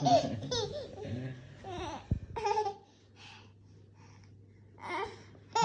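A young child babbling and laughing softly, trailing off after a couple of seconds, then a pause and one short vocal sound near the end.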